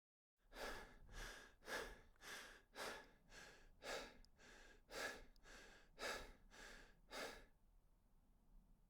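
A person breathing hard in a steady rhythm, about two breaths a second, stopping near the end.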